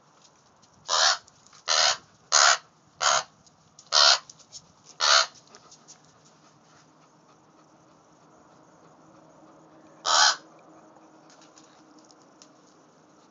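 Young American crow cawing: six short, harsh caws in quick succession, then one more after a pause of about five seconds.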